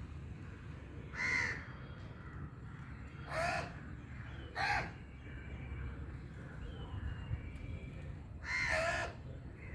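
Crow cawing: four short, harsh caws spread a few seconds apart, over a steady low background rumble.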